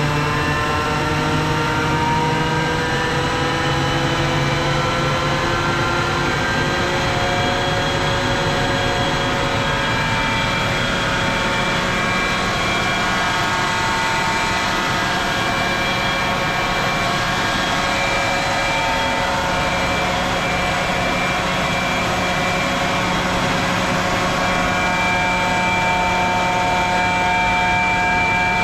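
CompAir L37S-9 50 hp air-cooled rotary screw air compressor running, a loud steady rushing hum with several whining tones. The whine climbs slowly in pitch over the first several seconds, then holds steady.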